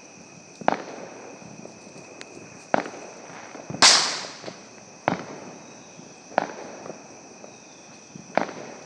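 Roman candle firing: a sharp pop every one to two seconds as each ball is shot out, with one louder hissing burst about four seconds in that fades quickly.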